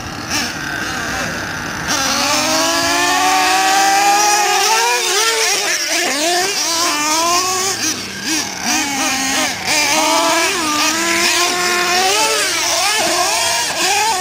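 Small nitro RC truck engine running hard, its high pitch rising and falling again and again as the throttle is worked. It gets louder about two seconds in.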